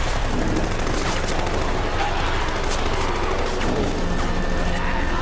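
Sustained automatic gunfire from several weapons, the shots running together into a continuous volley.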